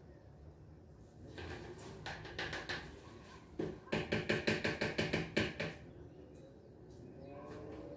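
A few light clinks, then, about three and a half seconds in, a quick run of about a dozen knocks at roughly six a second, lasting about two seconds, each with a short hollow ring: hard plastic being rapped against hard plastic.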